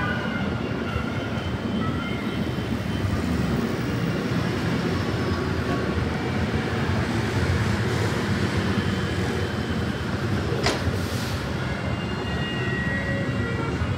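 Subway train running along the steel elevated structure overhead, a steady rumble mixed with street traffic, with one sharp clank near the end.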